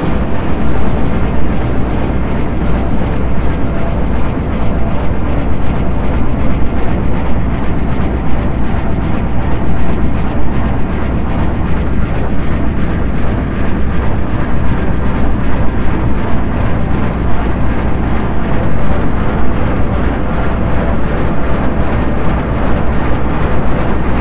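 Sci-fi spaceship cruising sound effect: a loud, steady deep hum under a dense rumbling roar that flickers rapidly throughout.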